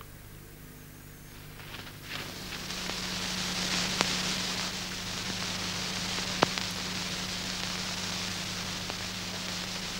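Hiss and crackle of an old film soundtrack over a steady low hum. The hiss swells about two seconds in, and there are two sharp clicks a couple of seconds apart.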